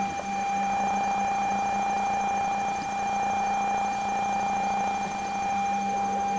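Battery-powered electronic synthesizer holding a sustained drone of steady electronic tones: a mid-pitched tone over a lower one, with a faint high pulsing tone above.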